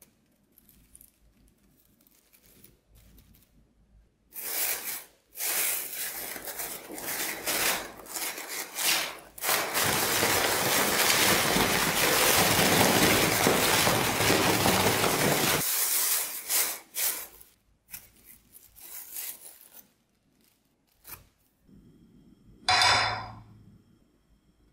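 Plastic bag crinkling and rustling as potato wedges are shaken in it to coat them with corn flour. The shaking comes in short bursts at first, then about six seconds of steady shaking. A single short knock near the end.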